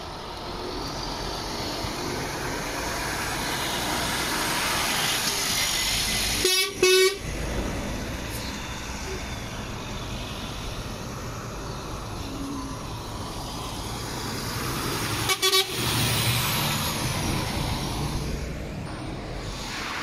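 Heavy trucks driving past with engines running, and a truck horn sounding two short toots, one about a third of the way in and another about three quarters through.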